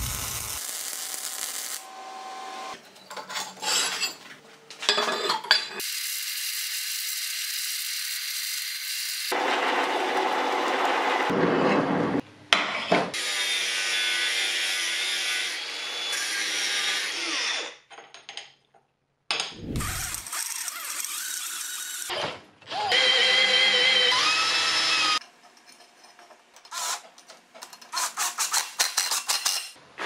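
A string of metalworking machine sounds in short segments that start and stop abruptly. They include a metal lathe's cutting tool turning steel and an angle grinder with a flap disc grinding steel clamped in a vise.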